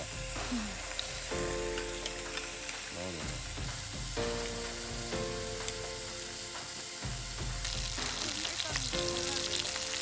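Whole scallops in their shells sizzling on a wire grill over charcoal, a steady hiss from the cooking.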